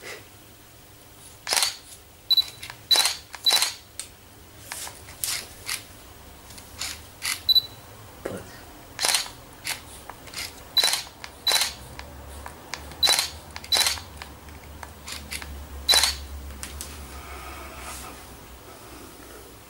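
Hairdressing scissors snipping through wet hair: a run of sharp metallic snips at irregular intervals, many with a brief ring, stopping near the end.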